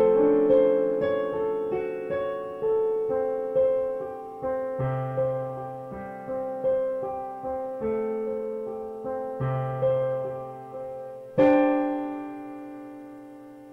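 Slow solo piano music: single notes about twice a second, each dying away, then a louder chord struck near the end that rings and fades out.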